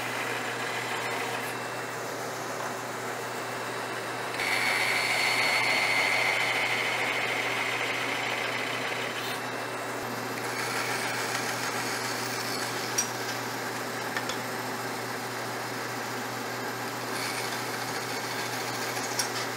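Craftsman 12-inch band saw-sander running steadily with a motor hum while its blade cuts dovetail kerfs in a small board; from about four seconds in to about nine seconds the cut gets louder, with a high steady whine.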